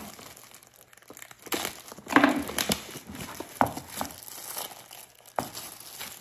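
Plastic wrapping being torn open and pulled off a hard plastic tool case, crinkling and tearing in irregular bursts, with a sharp knock a little after five seconds in.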